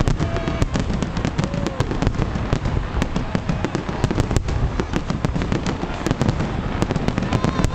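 Large aerial fireworks display: a dense, continuous barrage of shell bursts and crackling, many sharp bangs every second.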